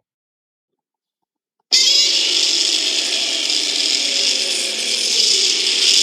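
A Godzilla sound effect: a loud, harsh, steady noise that starts abruptly about two seconds in, after silence.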